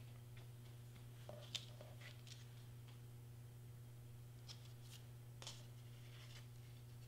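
Faint rustling and a few light clicks of hands handling thread and a cardstock piece, the sharpest click about a second and a half in, over a low steady hum.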